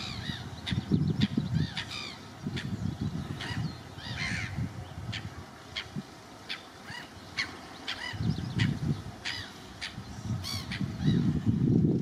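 Many short, harsh bird calls in quick succession, from birds other than the quacking mallard. Bursts of low rumbling noise come and go underneath, strongest near the end.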